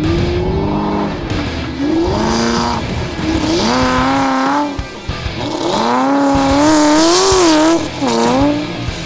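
Trophy truck engines revving hard and dropping back over and over, the pitch climbing and falling about once a second, with the longest and loudest rev about six to eight seconds in.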